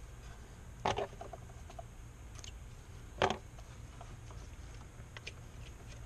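Black electrical tape being pulled off the roll while wrapping spliced wires of a car's wiring harness: two short crackling rips, about a second in and again past three seconds, with scattered light clicks of the wires being handled.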